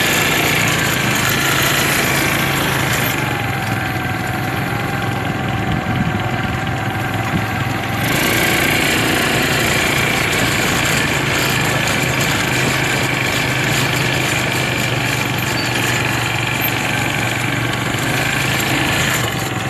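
Quad bike (ATV) engines running steadily as the bikes ride along, with a slight shift in the engine tone about eight seconds in.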